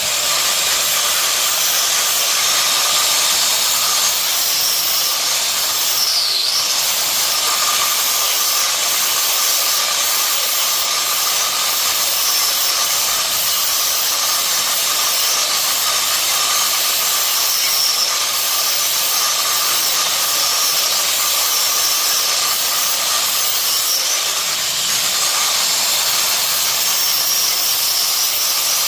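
Plasma cutter running as it cuts through the car's steel frame: a steady, loud hiss of the cutting arc and air jet.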